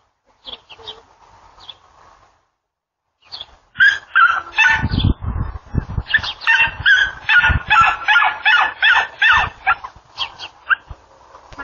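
Loud animal calls, several overlapping at different pitches and coming about three a second, start about four seconds in and stop shortly before the end. Low thumps sit under the first few seconds of the calls, and a few faint calls come before them.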